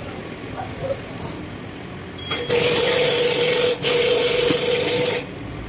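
A workshop tool runs in two stretches of about a second and a half each, with a short break between them. It makes a steady hiss with one constant tone, and the sound cuts off sharply.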